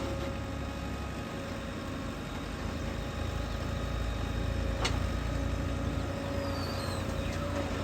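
Heavy diesel engine running steadily at low revs, with one sharp click about five seconds in.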